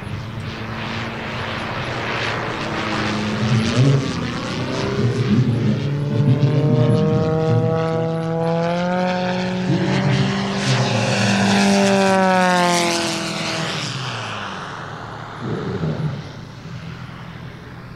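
150 cc four-cylinder engine and propeller of a large radio-controlled Cap 232 aerobatic model plane in flight. Its drone climbs slowly in pitch and grows louder for several seconds, then falls steeply in pitch and fades about three-quarters of the way through.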